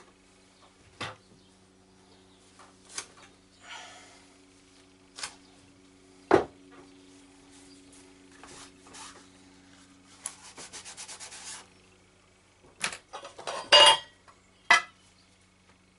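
Hands handling and rubbing a cloth rag on the workbench around a leather pouch: scattered knocks and taps, a quick rattling run of ticks a little past the middle, and the loudest crumpling rub near the end, over a faint low hum.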